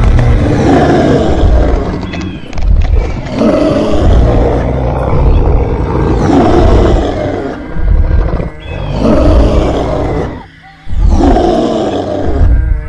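Dinosaur roar sound effects: several long, loud roars one after another, with short breaks between them.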